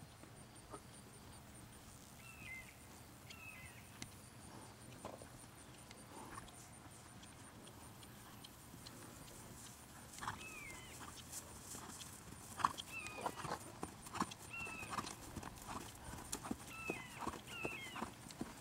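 Hoofbeats of a ridden Thoroughbred horse on a grass field. They are faint at first and become louder, sharper thuds and clicks from about halfway through.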